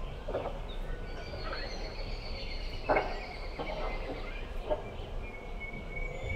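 Birds calling and chirping in a rural outdoor setting, with one brief louder sound about three seconds in.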